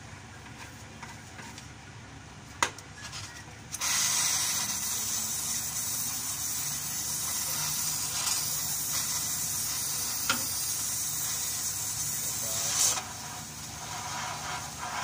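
Oxy-fuel cutting torch cutting rusted chassis steel: after a sharp click, the cutting jet starts abruptly about four seconds in with a loud, steady hiss, easing off and turning uneven near the end.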